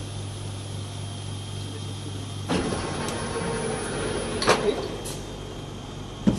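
Hot plate plastic welding machine at work: a steady hum, then about two and a half seconds in its tooling starts moving with a rattling, whirring run, with a sharp clunk about four and a half seconds in and another just before the end.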